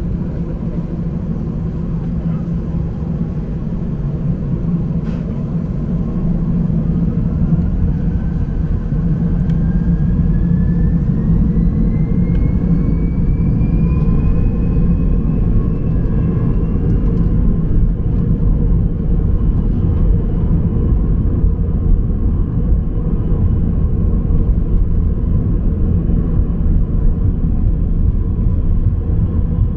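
Airbus A319 jet engines spooling up for take-off, heard from inside the cabin: a whine rises in pitch over about ten seconds, then holds steady over a loud, deep rumble that grows as the aircraft rolls down the runway.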